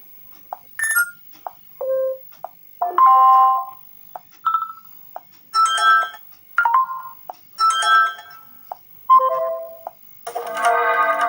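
Ringtone of a Doogee X10 smartphone: a melody of short, bright pitched notes with brief pauses between phrases, building to a denser run of notes near the end.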